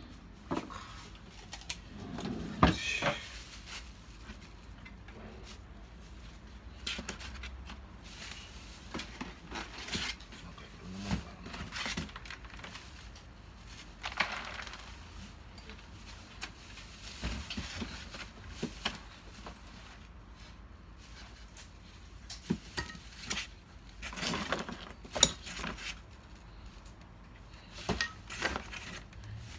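Small metal parts clinking and packing material rustling as parts are taken out of a styrofoam-packed cardboard box, in scattered clicks and rustles. A plastic bag crinkles near the end.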